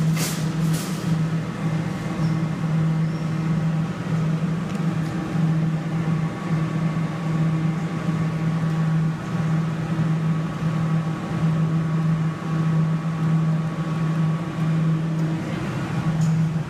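Steady mechanical hum from a claw machine: a low drone that dips and swells about once a second, with fainter steady higher tones over it. A couple of sharp clicks come right at the start.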